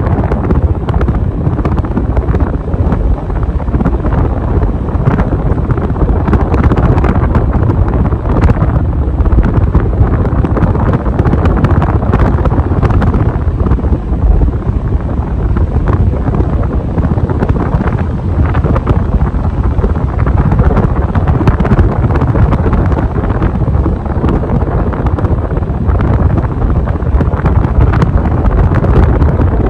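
Casablanca Wailea ceiling fan running on a replacement start/run capacitor, its airflow buffeting the microphone with a steady, loud wind noise.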